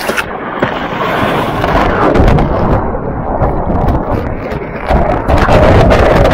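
Breaking surf churning and splashing right over an action camera held at the water's surface while body-surfing a wave: a loud, low rushing wash of water. It grows louder about five seconds in as the camera is swallowed by the whitewater.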